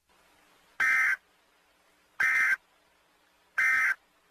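Emergency Alert System end-of-message data bursts: three short, identical warbling digital squawks about a second and a half apart.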